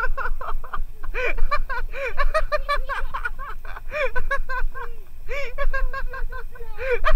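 Geese honking in rapid runs of short calls, several bursts with brief pauses between them.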